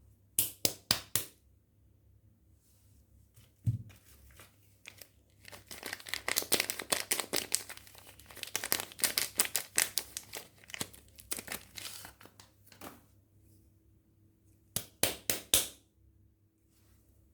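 Soap wrappers being crinkled and torn open. There are a few sharp crackles near the start and a dull thump about four seconds in. A long stretch of dense rustling follows from about six to thirteen seconds, then another quick run of sharp crackles near the end.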